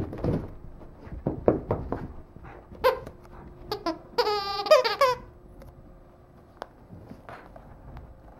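Squeakers inside a Kyjen Invincible Gecko plush dog toy squeaking as a Shiba Inu shakes and chews it. There are soft thumps of the toy and paws on carpet in the first two seconds, two short squeaks around three seconds in, then a longer wavering run of squeaks for about a second.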